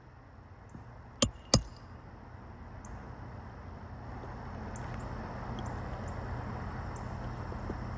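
Two sharp hammer blows a third of a second apart on a shingle roof, about a second in, followed by a steady low rushing noise that slowly grows louder.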